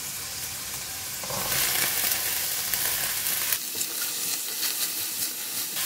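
Mustard green stems dropped into hot oil in a pan with fishballs, the sizzle jumping up loudly about a second in, then sizzling steadily as a spatula stirs them, with short scraping strokes.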